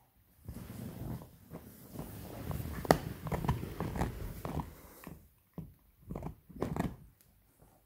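Beagle puppy gnawing a pork bone: teeth crunching and scraping on the bone, a dense run of clicks and rustling for the first few seconds with one sharp crack about three seconds in, then a few separate crunches near the end.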